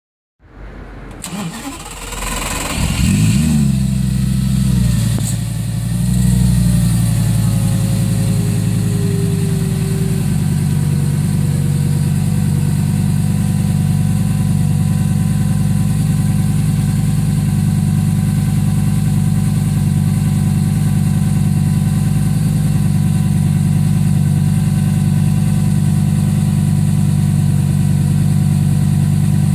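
Lamborghini Gallardo's V10 engine starting. It catches with a rev flare about three seconds in and blips again around six seconds. Its pitch then sinks slightly as it settles into a steady idle.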